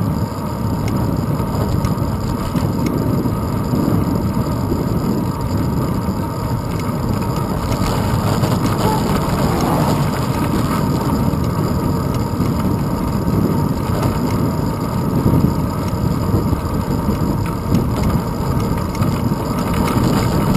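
Steady rumble of wind and road vibration from a bicycle in motion, picked up by a handlebar-mounted GoPro Hero 2.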